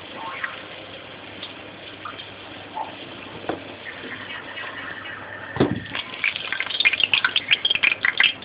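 Potatoes frying in hot oil in a stainless steel pot, the oil sizzling as they are lifted out with a slotted spoon. A single knock comes about five and a half seconds in, followed by a burst of dense, sharp crackling and spitting.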